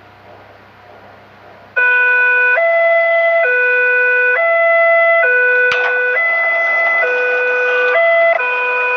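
Electronic two-tone siren sounding hi-lo, switching between a lower and a higher tone about once a second; it starts suddenly about two seconds in, after a faint hum, and a single sharp click comes near the middle.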